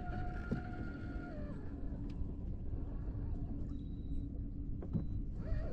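Wind rumbling on the microphone, with a faint steady hum from the kayak's bow-mounted electric trolling motor.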